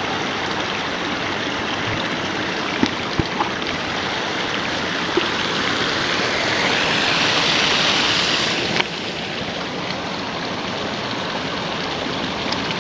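Steady rush of running water in a shallow irrigation ditch, with water pouring in from a pipe outflow, and a few faint clicks. The hiss grows louder for a couple of seconds past the middle, then drops sharply about nine seconds in.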